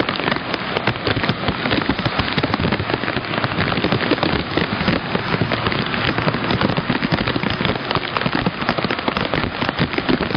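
Heavy thunderstorm downpour: a dense, steady crackling patter of raindrops striking close by.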